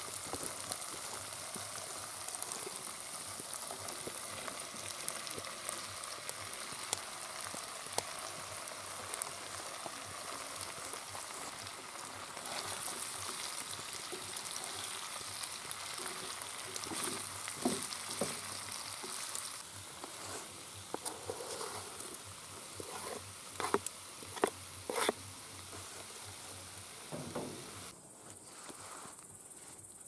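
Cubed potatoes and mushrooms sizzling in hot oil in a cast-iron skillet. In the second half a wooden spatula stirs them, scraping and knocking against the pan several times.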